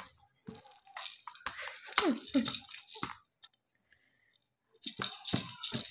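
Plastic baby rattle toy, a ring with a ball inside, shaken and handled, rattling in spells for the first three seconds and again near the end. A couple of short falling voice sounds come about two seconds in.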